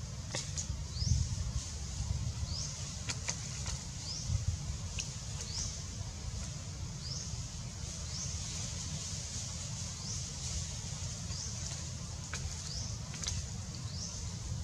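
Outdoor ambience: a short, high rising chirp repeated about once a second from an unseen small animal, over a steady low rumble, with a few faint clicks.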